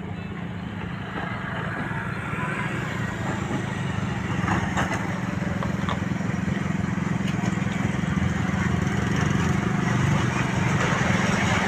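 A steady low engine drone among vehicle noise, growing gradually louder.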